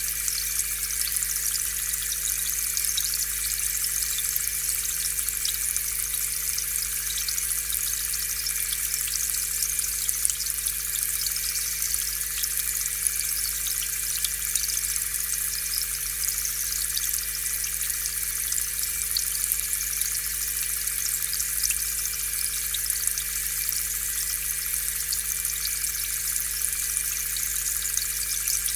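Aquarium air pump running steadily, its air bubbling up through the tank water in a constant fine fizz and patter, over a low steady hum from the pump.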